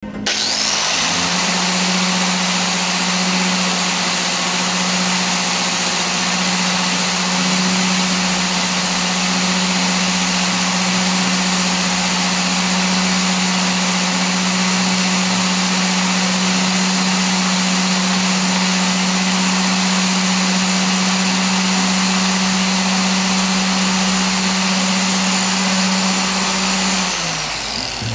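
Bosch angle grinder switched on and spinning up to speed, running steadily at full speed with a hum and whine, then switched off near the end and winding down.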